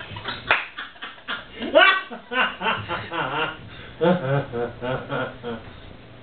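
A person laughing in several bursts of snickering and chuckling, with no clear words.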